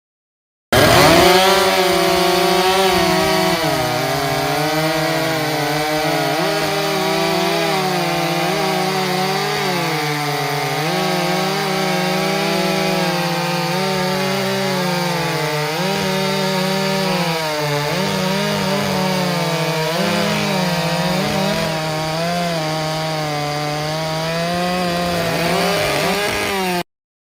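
Stihl MS 661 two-stroke chainsaw running at full throttle through a long cut in a large maple log, its pitch wavering as the chain bogs and recovers under load. The revs climb near the end as the saw breaks through.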